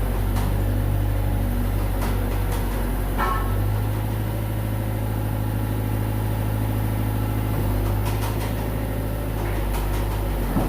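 Excavator's diesel engine running steadily, with a few light knocks and a short high squeal about three seconds in.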